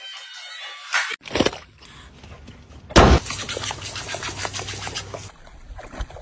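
Garden hose spray nozzle hissing as water sprays at a dog snapping at the stream; it starts suddenly and loudly about three seconds in and cuts off about two seconds later. Other short clip sounds come before and after it.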